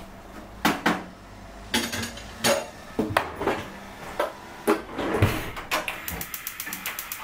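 Kitchenware being handled: a string of separate knocks and clinks of pans, dishes and utensils, then a fast run of light ticks, about eight a second, near the end.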